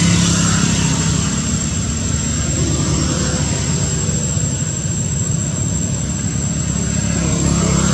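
Steady low engine rumble, like motor traffic or an aircraft going over, with a thin high steady tone running alongside.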